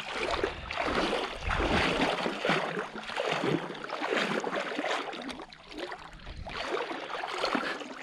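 Water splashing and sloshing close by as a swimmer moves through it, in irregular surges about twice a second.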